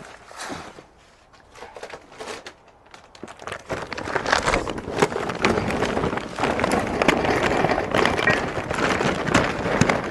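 Charcoal briquettes poured from a paper bag into the metal bowl of a small Weber kettle grill. They clatter and rattle continuously from about four seconds in, after a few seconds of scattered rustling and knocking as the bag is handled.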